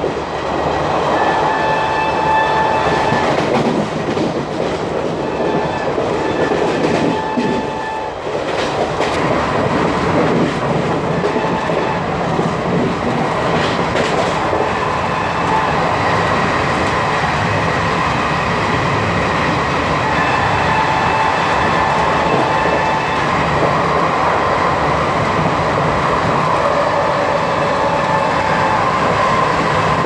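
ICF passenger coach running fast, its wheels clattering over the rails with a steady rush of wind. The locomotive's horn sounds several times in long held blasts, near the start, about a quarter of the way in, and again in the last third.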